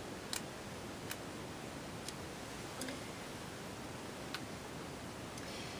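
A few light, irregular ticks, about five in six seconds, from a diamond-painting drill pen picking small resin drills off a plastic tray and pressing them onto the canvas, over a steady faint hiss.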